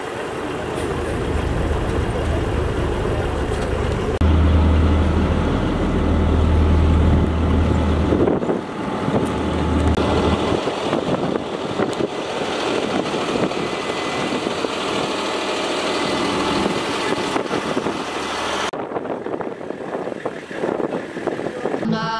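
Engines of military pickup trucks running, with a deep steady hum for several seconds in the first half.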